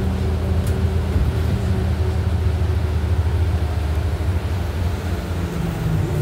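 New Flyer XD40 diesel transit bus running, its engine and drivetrain heard as a steady low drone from inside the passenger cabin. The engine note shifts slightly about five seconds in.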